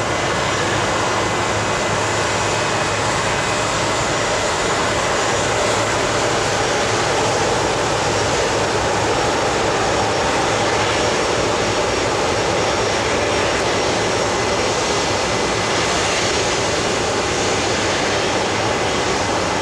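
Boeing 737-900ER's CFM56-7B turbofan engines running at low thrust as the airliner taxis onto the runway: a steady jet rumble with a faint high whine, holding level throughout.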